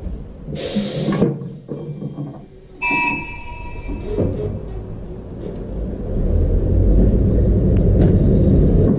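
Vintage trams shunting in a depot yard: a low rumble that grows louder over the last few seconds, with a burst of hiss about a second in and a short metallic ring near three seconds.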